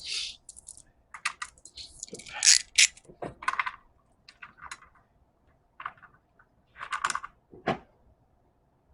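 Irregular light clicks, scrapes and rattles of hands turning and seating the battery booster's cable terminals, with a few louder handling clatters about two and a half and seven seconds in.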